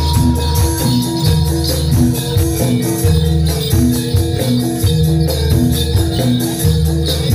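Jathilan (kuda lumping) accompaniment music: a Javanese gamelan-style ensemble playing a repeating pattern of tuned notes over low drum strokes, with steady jingling percussion on the beat.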